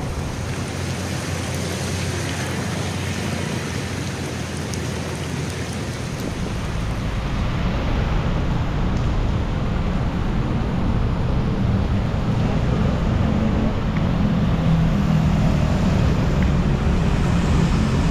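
Traffic on a rain-wet city street: a steady wash of tyre noise and motorbike engines, getting a little louder partway through.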